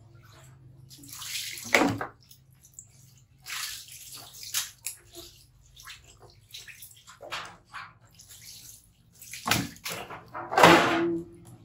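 Water scooped and poured from a plastic bowl, splashing over a wet baby monkey and onto a tiled floor in several irregular pours, the loudest near the end.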